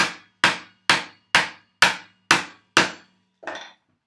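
Hammer driving a chisel into a wooden beam to chop a mortise: seven sharp, evenly spaced blows, about two a second. A softer, shorter sound follows near the end as the blows stop.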